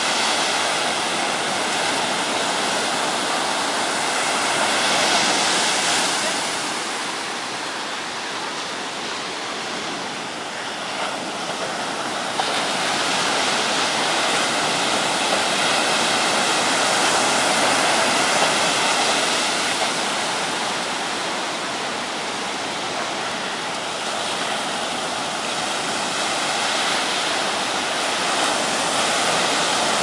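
Sea surf washing continuously onto a steep sandy beach, a steady rushing that swells and eases over several seconds at a time.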